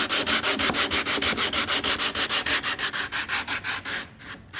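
Hand sanding a wooden beam with 100-grit sandpaper wrapped around a flat wooden stir-stick block: quick back-and-forth scraping strokes, about six or seven a second, that stop about four seconds in.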